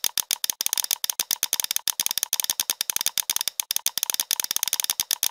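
Rapid mouse clicking, about eight to ten clicks a second with a few brief pauses, as path points are placed one after another.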